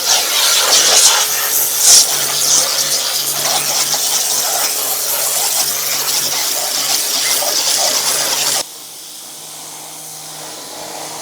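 Pressure washer jet hissing as it sprays, over the steady hum of its pump motor. About eight and a half seconds in, the spray noise cuts off suddenly, leaving a quieter hum.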